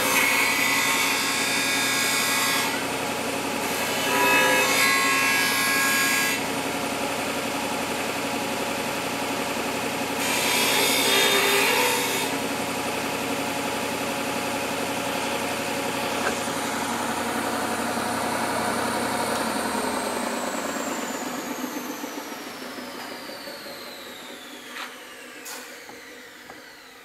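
Belt-and-disc sander running, with a steel knife blade pressed against it in three bursts of grinding over the first twelve seconds. About twenty seconds in the motor is switched off and winds down with a falling whine.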